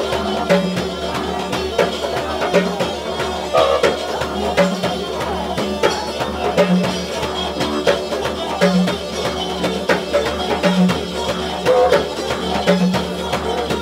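Live band music: a didgeridoo holds a steady low drone under quick hand-drum strokes, with a rhythmic low accent about every two seconds.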